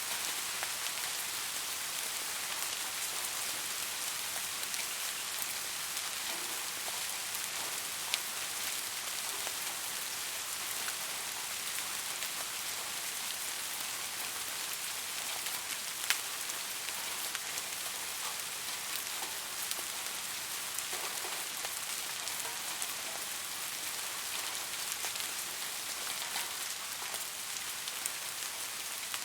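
Steady rain falling and pattering on surfaces, with individual drops ticking now and then, a couple of them louder, about 8 and 16 seconds in.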